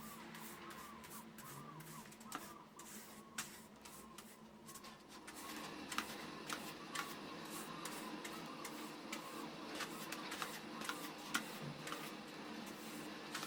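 Irregular light clicks and taps, coming more often about halfway through, over a faint steady background hum.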